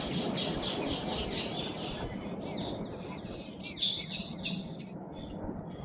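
Small birds singing: a fast run of repeated high notes for the first two seconds, then scattered short chirps, over steady low background noise.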